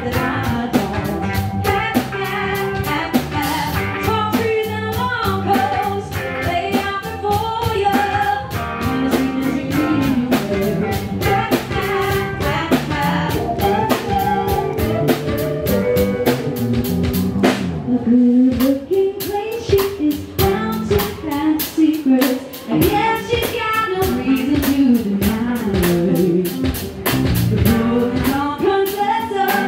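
Live funk/soul band playing loudly through a PA: a woman singing lead over electric guitar, bass guitar and a drum kit.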